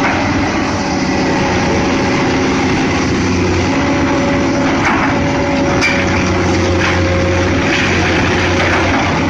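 Excavator's diesel engine running steadily under load, with a few short knocks from the demolition work.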